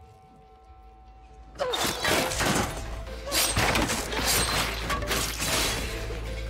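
Soft music, then about a second and a half in a sudden loud rush of whooshing, splattering sound effects that keeps going in waves as whips of blood lash around, over a steady deep bass.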